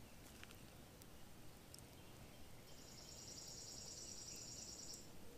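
Near-silent woodland ambience with a few faint ticks, then a high-pitched trill starting about halfway in and lasting a little over two seconds.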